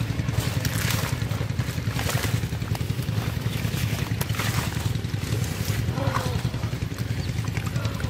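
A steady low engine drone, with scattered small wet clicks and splashes from hands working in mud and water.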